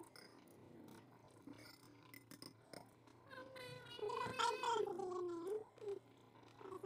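Faint clicks and taps of eating, then a woman's drawn-out voice for about two seconds past the middle.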